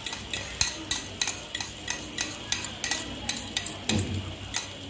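A metal fork clicking repeatedly, about three times a second, as it works beaten egg in a flat frying pan, over the steady sizzle of the egg frying.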